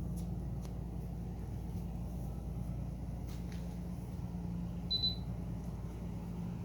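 Steady low hum of a quiet indoor room with a few faint clicks, and one short high beep about five seconds in.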